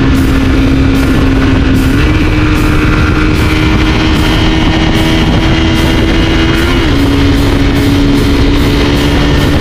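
Honda CRF250 Rally's single-cylinder engine running at highway speed under heavy wind rush on the microphone. The engine note steps up about two seconds in and drops back down near seven seconds.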